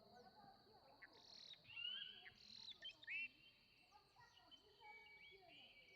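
Faint outdoor ambience of small birds chirping, in short gliding calls clustered about a second to three seconds in and again near the end, over a steady high-pitched insect-like tone.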